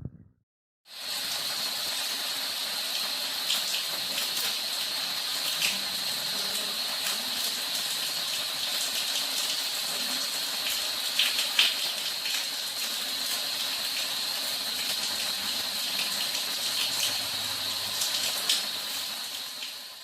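Steady rush of running water, starting about a second in after a short silence, with small splashes through it, fading out at the end.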